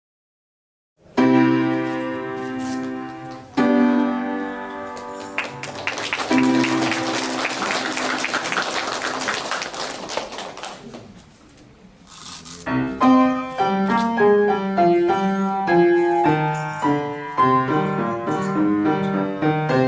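A piano plays two held chords, then applause runs for about five seconds, then the piano starts a lively, rhythmic accompaniment.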